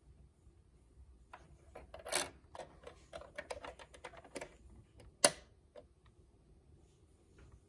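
Small plastic clicks and scrapes as a plastic bobbin is set into the drop-in bobbin holder of a Brother CS6000i sewing machine, then one sharp snap a little after five seconds in as the clear bobbin cover clicks shut.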